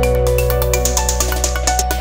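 Background music: upbeat electronic track with steady bass notes and a light ticking beat.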